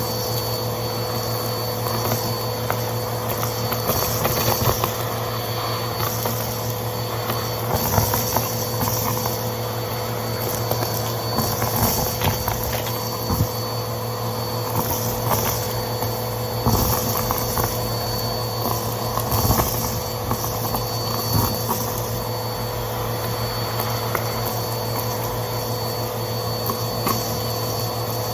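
Vacuum cleaner running steadily with a constant motor hum, with scattered crackles and ticks as crunchy debris is sucked up.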